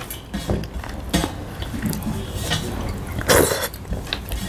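Eating sounds at a meal: spoon and dishes clinking and scraping in short, scattered sounds, with one louder burst of noise about three seconds in.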